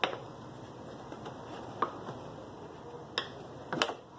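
Handling noise from a thin PET plastic jug being held and marked with a marker: a few sharp plastic clicks and pops at irregular intervals, the loudest right at the start and a quick double click near the end.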